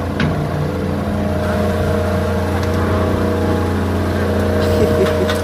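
Vehicle engine running steadily at a constant pitch, with a deep hum.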